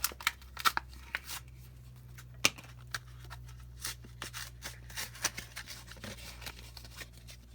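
Irregular sharp clicks and short scrapes of small hard plastic and metal objects being handled, over a steady low hum.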